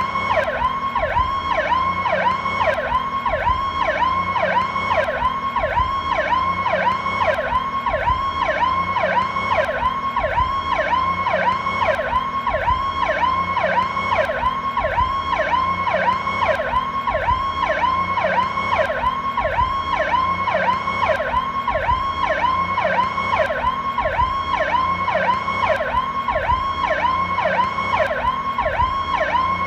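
A Powercall electronic ambulance siren sounding in a fast yelp, its pitch sweeping up and down about twice a second without pause.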